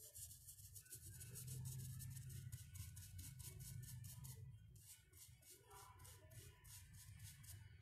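Faint, rhythmic scratching of a wide flat paintbrush stroking paint along the edge of a rough wooden board, about three or four strokes a second, over a low steady hum.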